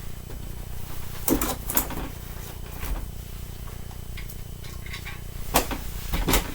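Clacks and knocks of the taken-apart trombone pieces being handled: a short cluster about a second in and two more near the end, over a low steady hum.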